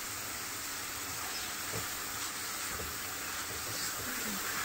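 Minced beef and onions frying in oil in a pan, a steady sizzle, with a spoon stirring in freshly added ginger-garlic paste.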